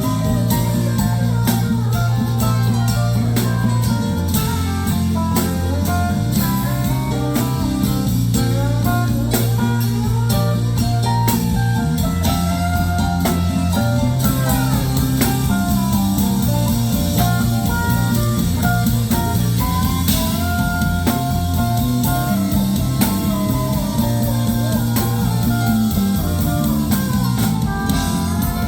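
Live rock band playing an instrumental passage: a lead line of bending, gliding notes over bass and drum kit.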